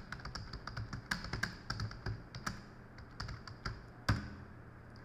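Typing on a computer keyboard: a quick, uneven run of key clicks, ending about four seconds in with one louder key strike, the Enter key sending the typed chat message.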